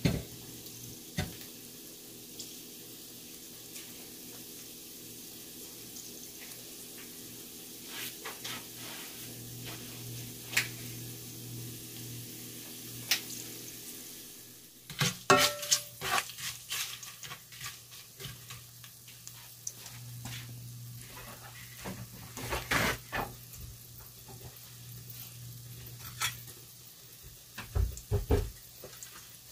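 Chopped garlic sizzling in oil in a stainless steel pot, with a steady low hum under it. Sharp clicks and knocks of a utensil against the pot come now and then, more often in the second half.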